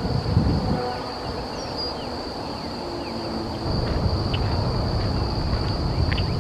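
Steady high-pitched drone of insects, with a few short faint bird chirps over a low rumbling background.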